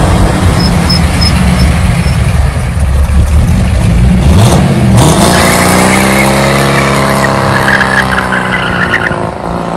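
Second-generation Chevrolet Camaro Z28's V8 revving hard in a burnout. The engine note climbs sharply about halfway through, and the spinning rear tyres squeal for the last few seconds.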